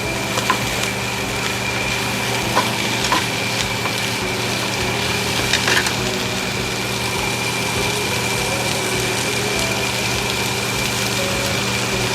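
Onions sizzling as they fry in a pan, with a few light clicks of a utensil against the pan and a steady hum underneath.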